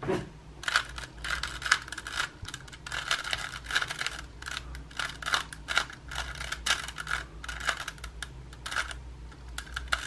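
Rubik's Cube layers being turned quickly by hand: a rapid, irregular run of plastic clicks and clacks, several turns a second. An algorithm is being run to orient the last two yellow corners, the final step of the solve.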